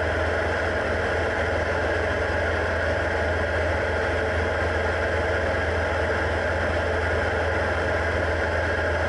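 Diamond DA40 single-engine piston airplane in flight, heard in the cabin: a steady drone of engine and propeller with a strong low hum and no change in power.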